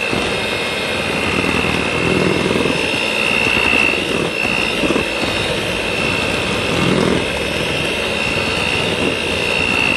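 Electric hand mixer running steadily with a high whine over a rushing noise, beating egg yolks and sugar in a stainless steel bowl.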